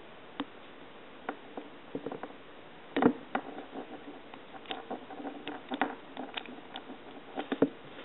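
Scattered small clicks, taps and scrapes of a hard plastic dispenser adapter being handled and probed with a thin metal pick, with the loudest knock about three seconds in.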